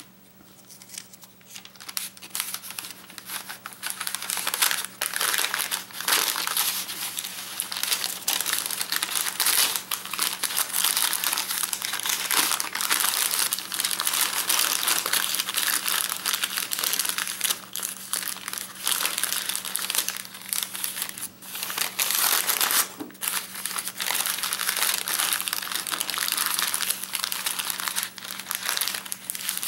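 A sheet of thin translucent wrapping paper crinkling continuously as hands fold it around a food square, starting softly and getting louder over the first few seconds, with brief pauses between folds.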